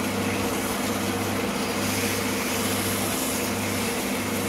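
Old drill press motor running steadily with a hum, spinning a ZAZ-965 starter part while abrasive cloth is held against its copper surface, adding a continuous hiss of polishing.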